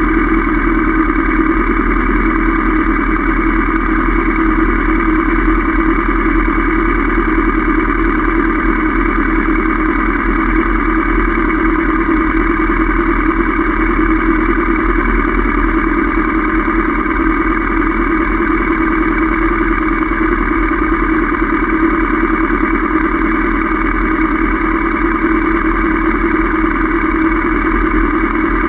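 Honda CB500F's parallel-twin engine running at a steady pace, its pitch unchanging, with no gear changes or revving.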